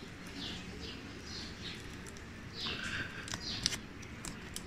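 Faint high chirps repeating every half second or so, with a few light clicks in the second half as fingers peel the tape off a laptop's display-cable connector.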